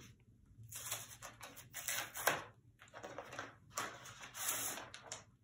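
Paper rustling and crinkling as a folded card is opened and handled, in a series of short, uneven rustles.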